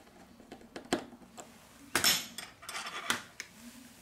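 Several sharp metal clicks and clinks from a precision screwdriver working a small screw in a smartphone's metal mid-frame, the loudest about two seconds in, with a brief ring after it.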